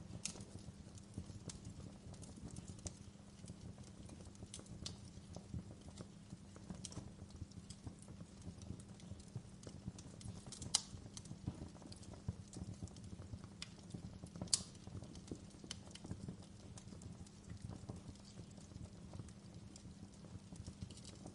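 Wood fire crackling in a fireplace: a steady low rush under frequent irregular small pops and snaps, with two sharper snaps standing out past the middle.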